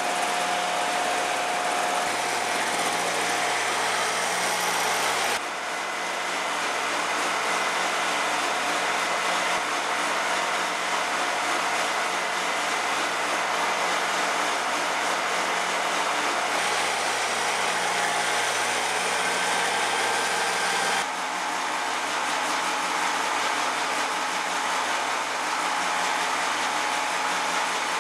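Shopsmith Mark V running steadily, a loud even whir with a few faint whining tones. This is its normal running sound, recorded as a baseline. The sound shifts abruptly twice.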